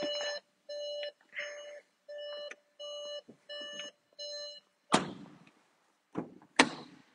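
Skoda Octavia's warning chime beeping steadily, one tone repeating about every two-thirds of a second while the driver's door stands open. It stops about four and a half seconds in, and two heavy thumps from the car's doors follow.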